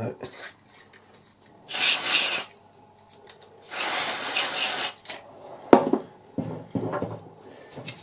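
Two hissing bursts of a WD-40 aerosol can spraying through its straw into a washing machine motor's carbon brush holder to free the brush, the second about a second long. A few clicks and knocks follow near the end.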